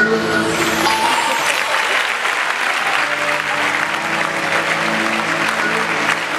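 Audience applause breaking out and continuing over background music with long held notes.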